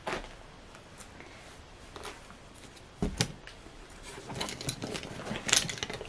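Small wooden jigsaw puzzle pieces and board clicking and clattering as they are handled. There is a sharper knock about three seconds in, and a busier run of clicks near the end.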